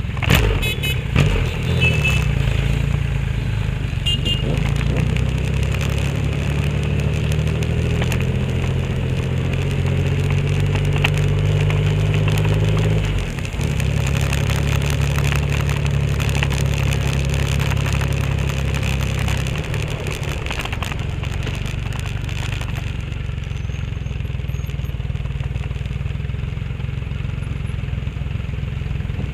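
Sport motorcycle engines running as a group rides along, heard close up from a camera mounted on one of the bikes. The engine note rises slowly in pitch, drops sharply about halfway through, then holds steady. A few short sharp knocks come in the first two seconds.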